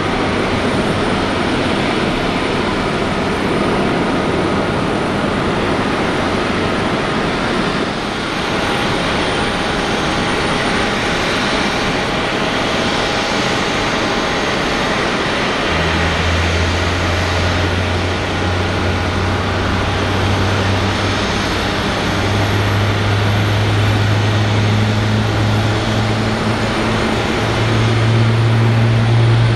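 Jet airliner engine noise at an airport, a steady rushing sound. About halfway through a low hum comes in and steps up in pitch twice toward the end.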